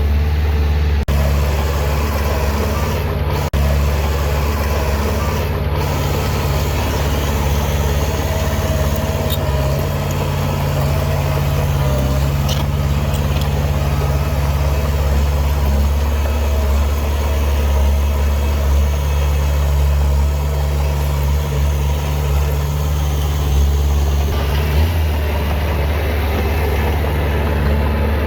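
Diesel engine of heavy earthmoving machinery running steadily, a loud, even, deep drone.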